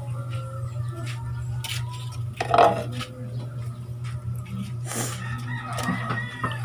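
Light clatter and scattered knocks of plastic containers being handled beside a charcoal grill, over a steady low hum.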